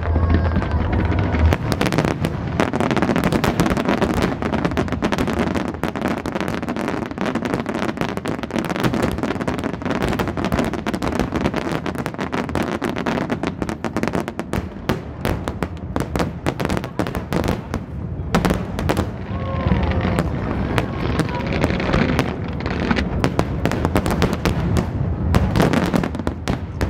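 Aerial fireworks display: a dense, continuous rattle of shell bursts and small pops, thinning out somewhat in the second half.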